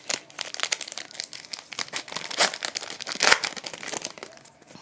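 Foil wrapper of a Pokémon Steam Siege booster pack being torn open and crinkled by hand: a dense run of crackles, with a couple of louder rips about halfway through and again a second later.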